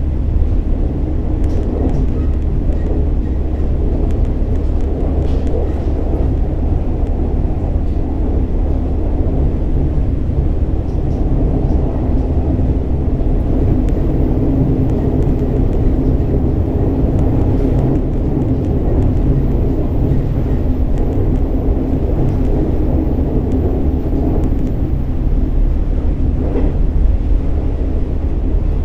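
Running sound of a KiHa 47 diesel railcar: a steady diesel engine drone under wheel-on-rail rumble, with a few faint light clicks along the way.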